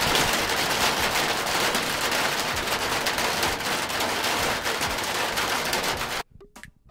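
Rain drumming on a van's metal roof, a dense crackle of many quick drops close to the microphone held up near the roof; it cuts off suddenly near the end.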